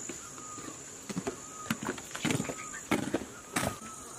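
Steady high-pitched insect trilling, with irregular footsteps and light knocks on hard ground.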